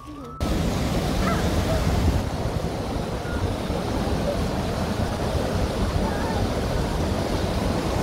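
Steady loud rush of white water pouring over a weir or rapids below a footbridge. It starts suddenly about half a second in and holds even throughout.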